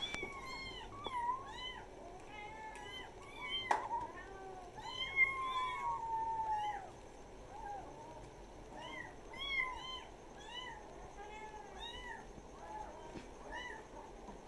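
Kittens mewing over and over in short, high-pitched mews, with one longer drawn-out mew that falls in pitch about five seconds in. A single sharp tap comes a little before it.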